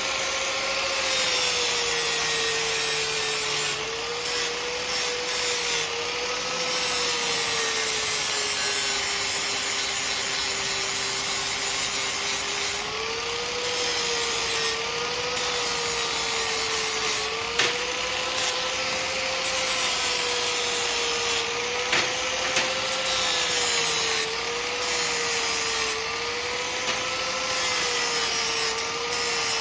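Angle grinder with a flap disc grinding the coating off metal driveshaft-loop pieces. The motor whines steadily and sags in pitch while the disc bears on the work. The grinding noise comes and goes in stretches of a few seconds as the disc is pressed on and lifted off.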